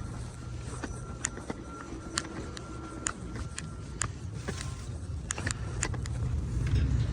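Steady low hum of an HVAC unit running, growing louder near the end, with scattered light clicks and taps of handling.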